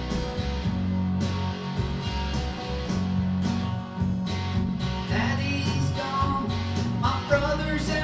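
Sunburst Les Paul-style electric guitar strummed in a rock chord pattern, with a man's singing voice coming in about five seconds in.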